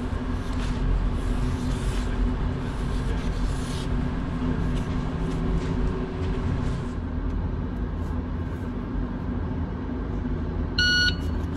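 Steady low machine rumble of an indoor shooting range's air handling, with a short electronic beep near the end.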